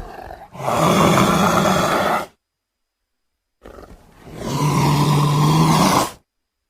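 Sri Lankan leopard roaring twice: one loud roar of about two seconds, then after a short silence a second that starts low and swells before cutting off.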